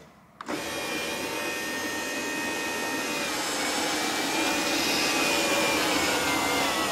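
Electric motor of a classic Mini's power-operated fabric open roof running as the roof closes: a steady whine that starts about half a second in and grows slightly louder. The roof is working properly on its newly completed wiring harness.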